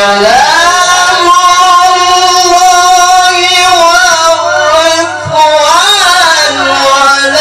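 A man chanting an Islamic devotional melody into a microphone: one long held, ornamented note that rises at the start, then a melismatic turn of the voice about six seconds in.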